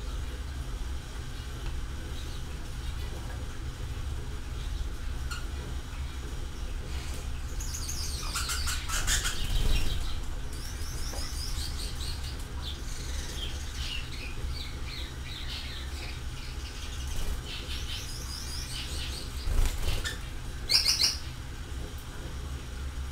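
Small birds chirping in quick runs of high notes, loudest about nine seconds in and again near the end, over a steady low rumble.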